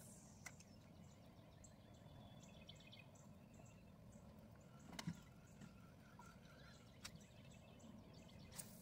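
Near silence: faint outdoor background hush with scattered faint bird chirps and a few soft clicks, the clearest about five seconds in.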